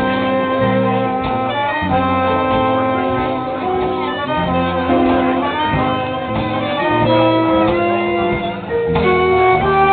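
Live band playing, a horn holding long notes over a moving bass line.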